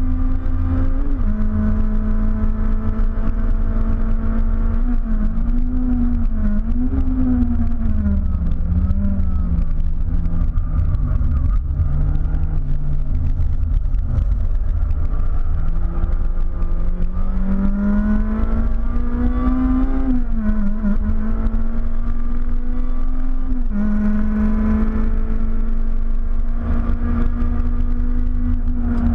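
Honda Civic's K20 four-cylinder engine heard from inside the cabin under hard track driving. It revs high with an upshift about a second in, falls in steps to its lowest revs around the middle, climbs again with another shift about two-thirds in, and runs high near the end, over a steady deep rumble.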